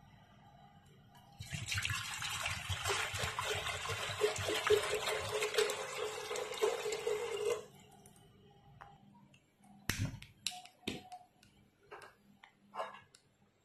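Water poured into an empty aluminium pressure cooker, a steady splashing rush that lasts about six seconds and stops just past the middle. A few short sharp knocks and clicks follow near the end.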